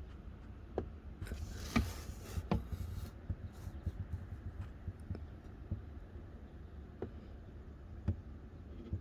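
Scattered small clicks and taps with a brief rustle about a second in, over a low steady rumble.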